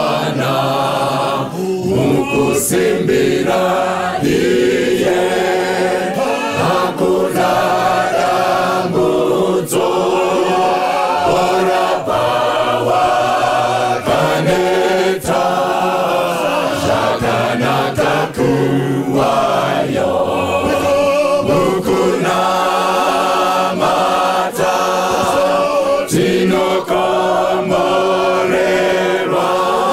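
Mixed church choir singing a gospel song, with male lead singers on microphones singing over the choir.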